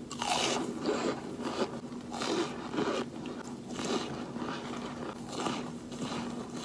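Biting and chewing chunks of pressed cornstarch: a string of dry, crisp crunches, one after another at an uneven pace.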